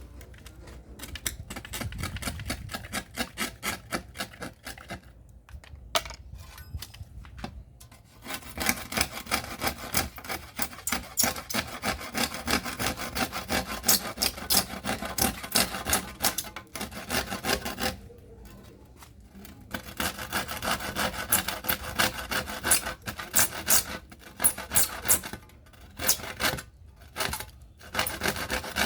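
Rapid, repeated rasping strokes of hand abrasion on a hard workpiece, like sanding or filing, in long runs broken by two short pauses.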